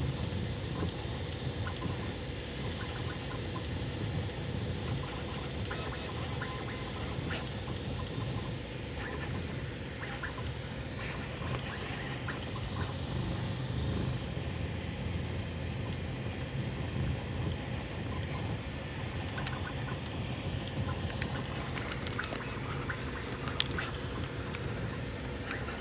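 Bambu Lab A1 Mini 3D printer running a print: a steady whirring hum of its motors and fans, with scattered light clicks as the print head moves quickly.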